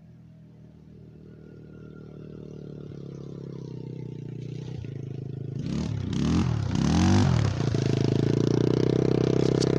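Taotao 50cc scooter with a custom aftermarket exhaust doing a drive-by at about 30 mph. The engine grows steadily louder as it approaches, its pitch swoops up and down as it passes about six seconds in, and then it runs loud and steady.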